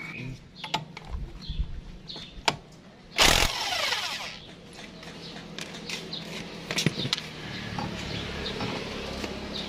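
Power impact wrench firing in one short, loud burst on the clutch bell nut of a Yamaha NMAX 155's CVT, then spinning down. Scattered light clicks and metal clinks follow as the loosened clutch bell is handled.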